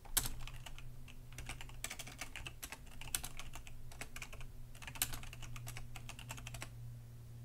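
Typing on a computer keyboard: quick, irregular key clicks that stop shortly before the end.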